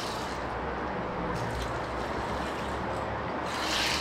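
Steady low rumble of highway traffic, with a short hiss near the end.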